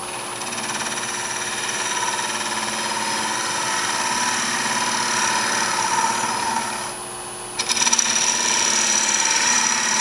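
Quarter-inch bowl gouge cutting across the end grain of a small wooden box spinning on a lathe: a steady rasping hiss of shavings over the lathe's running tone. The cut breaks off briefly about seven seconds in, then resumes louder.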